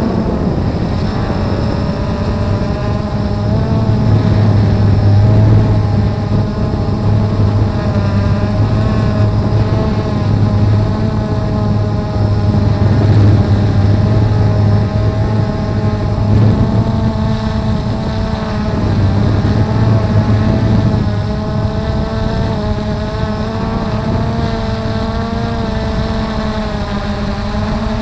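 Blade 350 QX2 quadcopter's brushless motors and propellers running in flight, heard from its onboard camera: a steady low hum with several whining pitches that drift up and down as the motors adjust speed.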